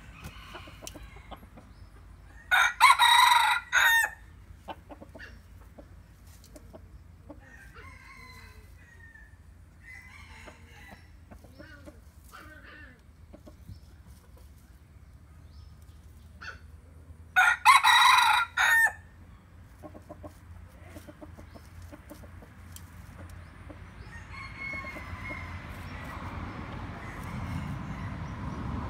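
A mixed-breed red junglefowl rooster crowing twice, each crow short and broken, about fifteen seconds apart, with softer clucks between them. A rising rushing noise builds near the end.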